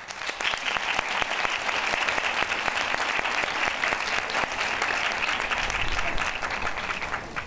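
Audience and panel applauding with hand claps. The applause starts suddenly, holds steady, and dies away near the end.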